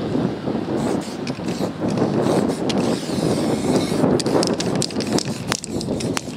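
Aerosol spray paint can hissing in short bursts, over a steady background din of street noise.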